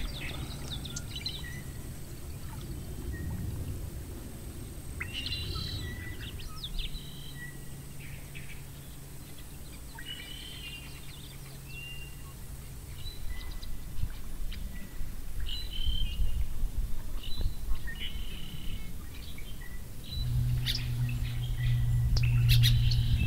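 Birds chirping and calling in short, repeated phrases, over a low steady hum that grows louder near the end.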